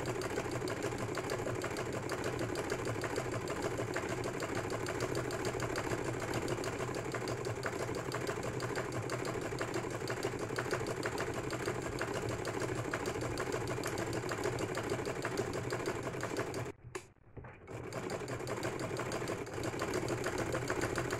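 Household sewing machine stitching a seam at a steady rapid pace. The stitching stops for about a second near the end, then starts again.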